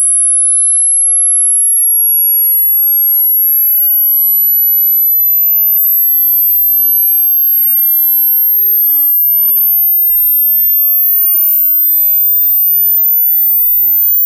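Hearing-test sine tone: a single pure, very high-pitched whistle climbing slowly and steadily in pitch, sweeping toward the top of the range of human hearing.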